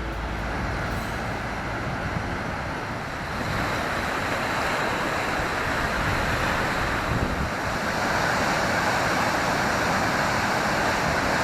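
Steady rush of a river swollen with spring runoff pouring through a hydro dam, getting a little louder about three seconds in.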